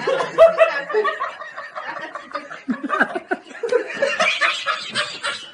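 People laughing, in quick repeated bursts of voice throughout.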